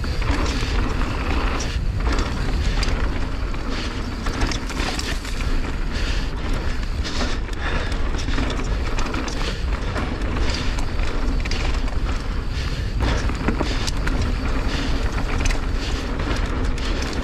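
Mountain bike descending a loose, dry dirt trail: a steady rush of wind on the camera microphone with a low rumble, tyres running over the dirt, and frequent knocks and rattles from the bike over rough ground.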